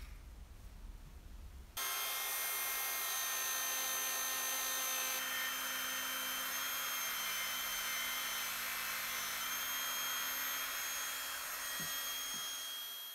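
Proxxon rotary tool starting about two seconds in and running at a steady high whine, with a felt polishing bob buffing a brass bottle opener. It stops suddenly at the end.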